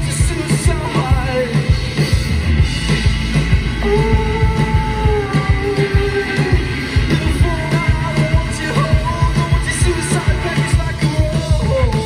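Live band playing through a PA, heard from the crowd: a singer holding long notes over a steady drum beat and heavy bass.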